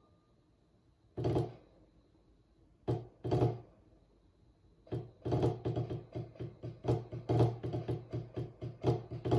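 Wooden drumsticks striking a drum practice pad: a single stroke, then two close together, then from about five seconds in a steady run of strokes with some accented hits.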